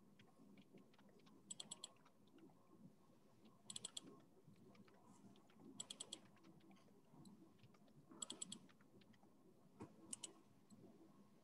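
Faint computer keyboard typing: short runs of a few quick keystrokes about every two seconds.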